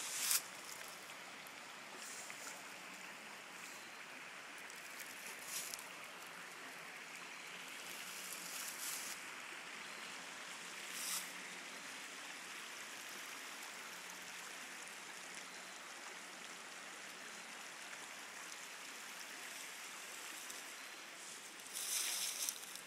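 Creek water running steadily over rocks, with a few brief rustles or crunches of leaves underfoot now and then.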